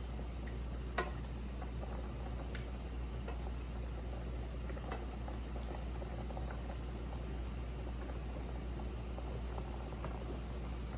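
A pot of dirty rice mix bubbling steadily on the stove while it is stirred, with scattered light clicks of the spoon against the pot, one sharper about a second in.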